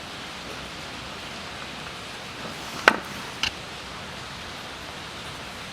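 Steady background hiss with two short sharp clicks about half a second apart, about three seconds in, the first one louder.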